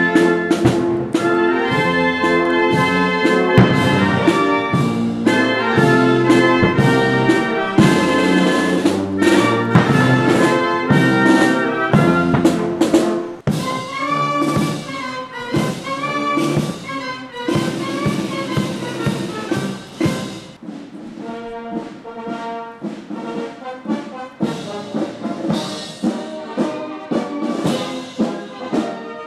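Military brass band playing, with trumpets, trombones and sousaphones over drum strokes keeping time. About two-thirds of the way through the music gets quieter and the bass falls away.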